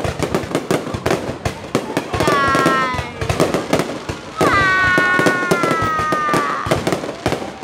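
Fireworks going off in a dense run of bangs and crackles. Over it come two long, high-pitched tones that sink slightly in pitch, one about two seconds in and a longer one from about four and a half seconds in.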